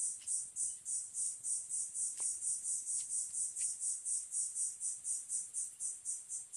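An insect calling in a steady, high-pitched pulsing rhythm, about three pulses a second.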